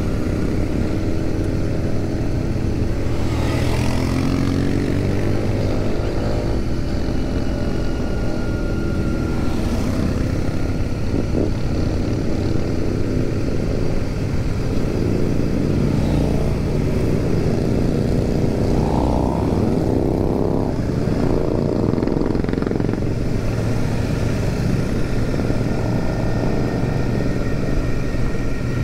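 Royal Enfield Super Meteor 650's parallel-twin engine running under way, heard from the saddle, its pitch rising and falling with the throttle several times. Other motorcycles ride close by.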